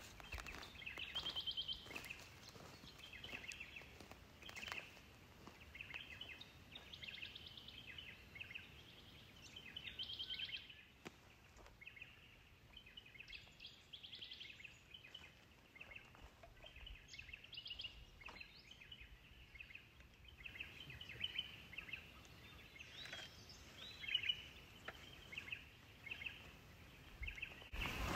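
Birds chirping and singing, many short calls and quick trills one after another, over a faint steady hiss.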